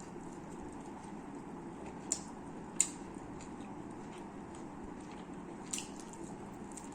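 Close-up eating sounds from chicken biryani: soft chewing and squishing over a steady background hum, with three short, sharp mouth clicks or smacks about two, three and six seconds in.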